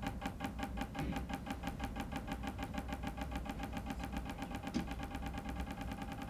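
A steel ball bearing bouncing on an amorphous liquid-metal (nickel-titanium-zirconium-beryllium-copper) disc inside a glass tube, making a fast, unbroken run of light clicks that come ever closer together as the bounces get shorter. The bouncing keeps going because the metal's high coefficient of restitution turns very little of each impact into heat. It is heard replayed over a classroom's loudspeakers, with room hum underneath.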